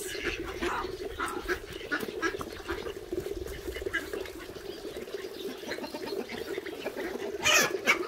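Farmyard poultry calling, with a louder call near the end.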